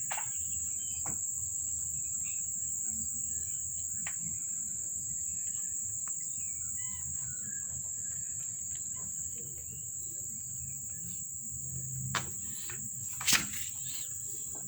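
Steady high-pitched insect chirring, crickets by the sound of it, with two sharp clicks near the end, the second one louder.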